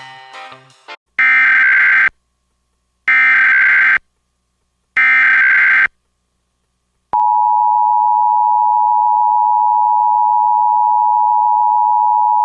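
A music bed ends about a second in. Then come three bursts of Emergency Alert System SAME header data, each just under a second long with a second of silence between them, encoding a Severe Thunderstorm Warning. About seven seconds in, the steady two-tone EAS attention signal (853 and 960 Hz) starts and holds.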